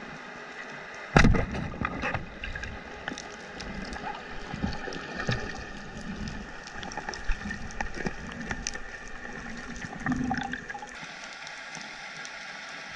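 Underwater, a speargun fires with a single sharp crack about a second in. Scattered clicks and crackles and the diver's gear and movement noise follow over a steady underwater hiss, with a duller thud near the end.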